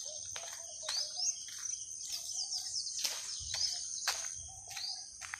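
Small birds chirping in short, quick calls, several of them quick rising or falling sweeps, over a steady high-pitched whine.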